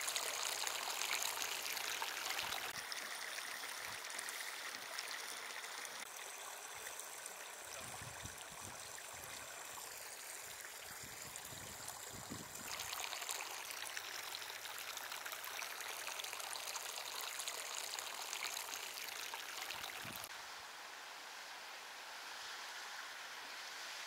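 Hot-spring water running and trickling over travertine terraces: a steady, quiet rush of flowing water that shifts in tone a few times.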